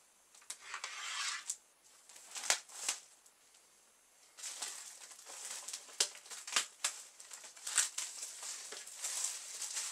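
Clear plastic shrink wrap on a new skateboard deck crinkling and crackling as it is handled and peeled off, in uneven bursts with sharp snaps, a short lull a few seconds in.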